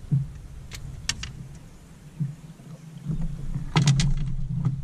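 Sharp knocks and clicks on a bass boat's deck as a just-landed bass is handled and unhooked, loudest near the end, over a steady low hum.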